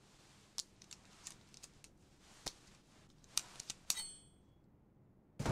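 Small handling clicks and ticks, then about four seconds in a short, high metallic ring as a blade is slid out and comes free. Near the end a sudden louder rushing sound cuts in.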